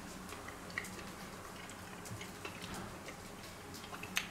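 Quiet chewing of a bite of steak: faint, scattered mouth clicks over a low steady hum, with one sharper click near the end.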